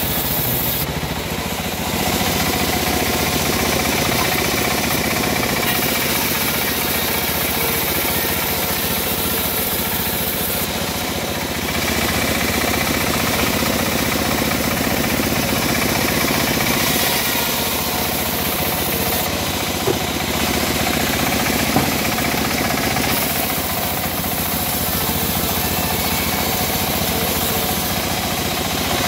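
Homemade bandsaw mill running continuously, its blade sawing through teak over the steady hum of the machine's drive. The high hiss of the cut comes and goes several times as pieces are fed through.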